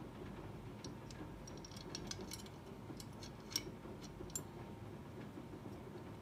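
Small metal clicks and taps as a stainless steel hammer is handled and fitted into the stripped frame of a WE Walther P38 airsoft pistol. The clicks are scattered, bunch up around two seconds in, and are loudest at a single sharp click about three and a half seconds in, over a steady low hum.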